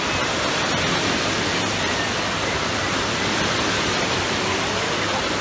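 Steady rushing wash of a wave pool's surf, foamy waves breaking and running up the shallow end, at an even level throughout.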